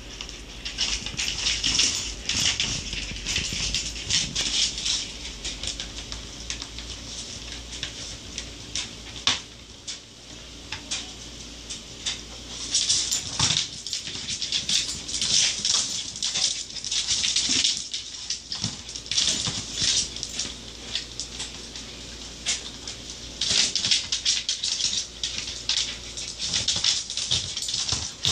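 A dachshund's claws click and scrabble rapidly on a vinyl floor while it plays at a plastic laundry basket, in three long bursts of quick tapping with a few single knocks between.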